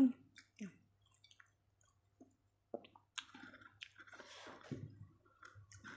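Close-miked chewing and wet mouth sounds of someone eating stir-fried fern and rice by hand, sparse at first and busier in the second half.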